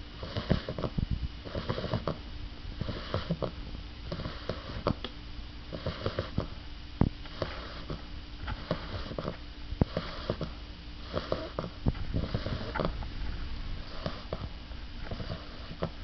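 English bulldog puppy snoring in her sleep: little snores in an even rhythm, each breath a little over a second apart, with a light rattle.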